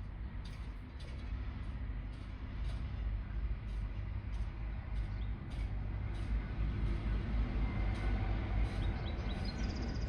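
A steady low rumble, building over the first few seconds and then holding, with faint bird chirps above it and a few clearer chirps near the end.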